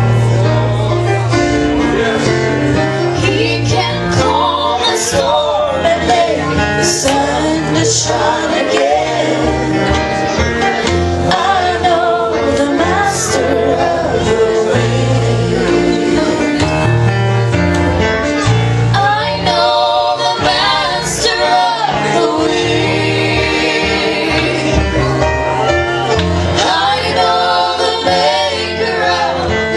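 Live bluegrass-style gospel music: an acoustic band with guitar playing, and voices singing along.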